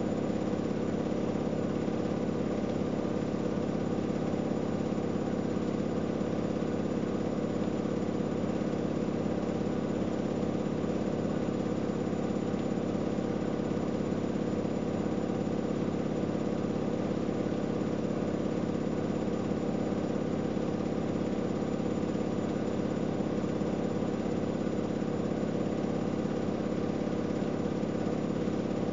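AEG Öko-Lavamat 693 washing machine running with a steady motor hum that does not change.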